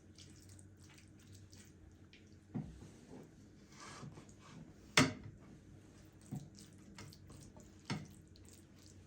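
A few light knocks and clinks of objects being handled and set down, the loudest about five seconds in, with a brief soft hiss of water just before it.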